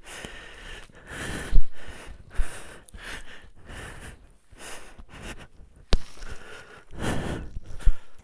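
A person breathing hard and sniffing close to the microphone in irregular puffs, with a few sharp knocks in between.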